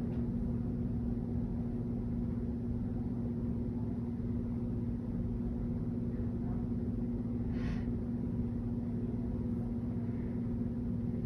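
Steady mechanical hum with a low droning tone and a rumble beneath it, unchanging throughout, with a brief faint hiss about two thirds of the way through.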